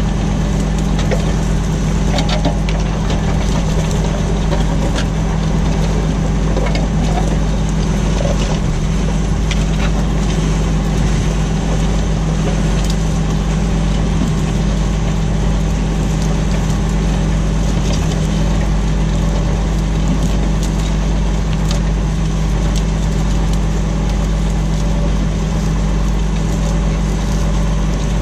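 Tractor engine running steadily while ploughing, with scattered light clicks and rattles over its constant low drone.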